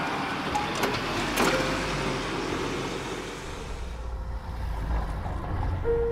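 Road traffic rumble from passing cars that swells over the last few seconds, with a short steady tone near the end. Before it comes an outdoor hiss broken by two sharp clicks at about one and one and a half seconds in.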